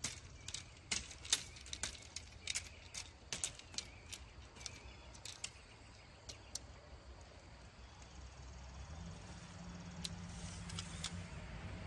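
Light scattered clicks and taps of a folding tubular steel display easel's legs and joints as they are spread out into a tripod; the clicks stop about halfway through, leaving a faint background hum.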